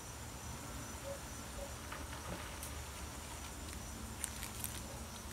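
Quiet garden background with faint insect chirping and a steady low hum, and a few faint ticks near the end as snack items are handled.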